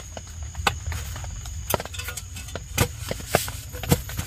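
Small folding camp table with wire legs being unfolded and set down on a tent groundsheet: about five sharp metallic clicks and knocks at irregular intervals, the loudest near the end.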